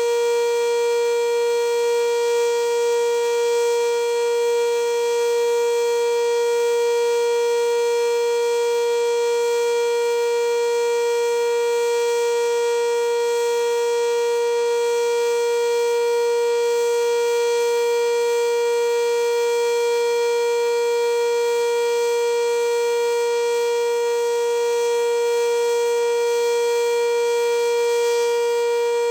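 Sentry 3V8 outdoor warning siren sounding a steady, unwavering tone at full speed during its weekly test.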